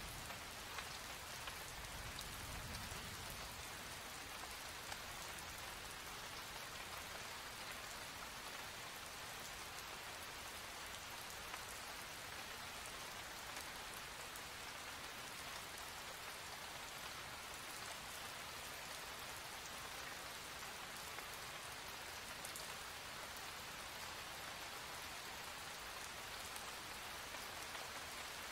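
Steady rain falling: an even hiss with scattered single drop ticks, and a brief low rumble about two seconds in.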